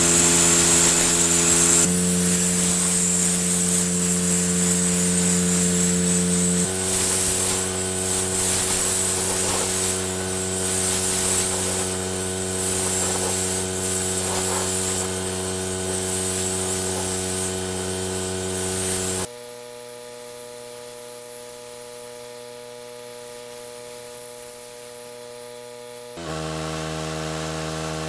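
Pressure washer running with a steady machine hum while its jet sprays water in a loud hiss. The spray and level drop for several seconds about two-thirds of the way through, leaving a quieter hum, and then pick up again near the end.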